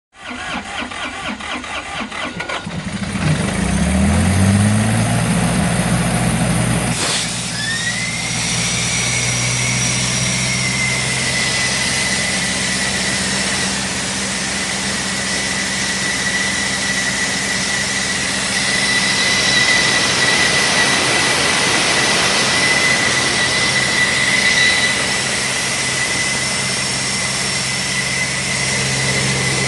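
Diesel engine of a Komatsu portable screw air compressor cranked by its starter, catching after about three seconds and revving up. About seven seconds in a high whine sets in and the machine then runs steadily.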